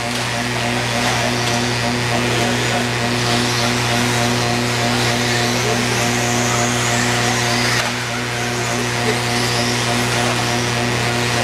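Electric 1/10-scale buggies with 17.5-turn brushless motors racing on a dirt track. Their motors whine, rising and falling as they accelerate and brake, with tyre and chassis noise, over a steady low hum.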